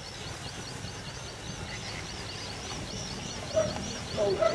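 A bird repeats a short, high, arching note about three times a second. Near the end, several louder, lower, fowl-like calls break in.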